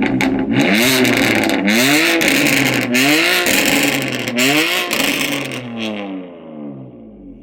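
BMW M4 GTS's S55 twin-turbo straight-six, its exhaust valves disconnected and held open, revved hard in four or five quick blips, the pitch climbing and dropping with each, with crackles and pops in the exhaust. The revs then fall away and the sound fades near the end.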